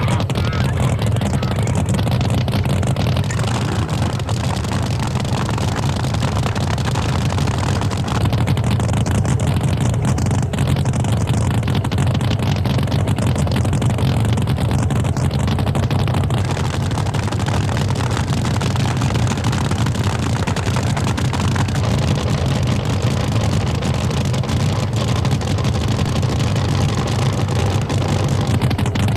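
Top fuel hydro drag boat's nitromethane-fuelled engine, running loud and steady after being lit.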